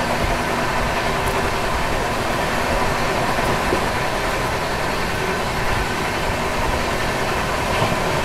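Passenger train running along the line: a steady rumble of wheels on rail with a faint steady whine, heard from on board.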